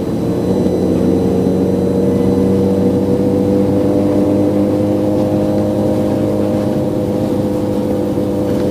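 Audi A3 engine and road noise heard from inside the cabin, cruising steadily on the highway: an even hum whose pitch creeps up slightly over the first few seconds, then holds.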